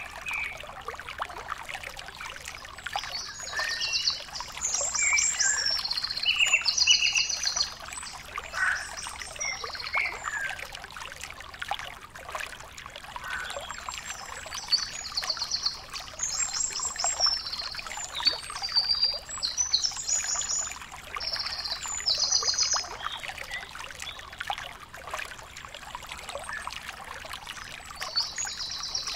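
Birds singing and chirping in short, repeated phrases over a steady crackling hiss.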